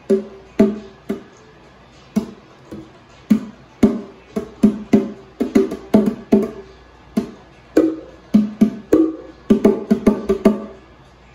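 A pair of bongo drums struck by hand in an irregular rhythm, each stroke a short ringing pop. The strokes switch between a lower and a higher drum, sometimes in quick flurries, with short pauses between them.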